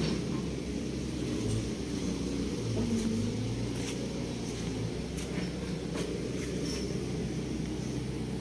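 A heavy machine's engine running steadily, an even low hum, with a few faint clicks over it.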